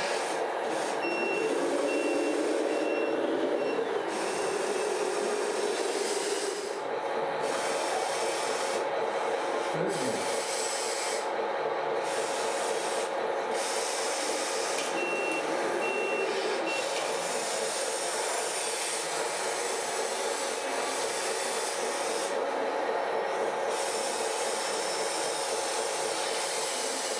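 Reversing beeper of a scale RC truck's sound module, sounding two short runs of evenly spaced beeps, over a steady electronic engine-and-machinery running sound.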